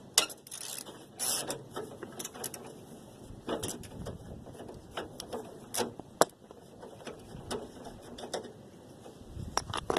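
Hand tools working a bolt on the car's chassis: a ratchet wrench clicking, with irregular sharp metallic clicks and clinks.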